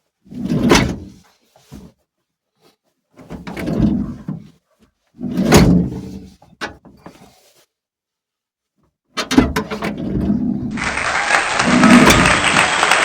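Fiat Doblo van's sliding door being worked from inside with its newly fitted latch: three clunking, rolling bursts in the first seven seconds or so. From about nine seconds in a continuous sound follows, and near the end music with applause comes in.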